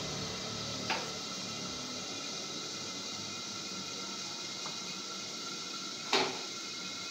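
Flat beans simmering in a covered aluminium kadai on a lit gas burner: a steady hiss, with two short clicks, the louder one about six seconds in.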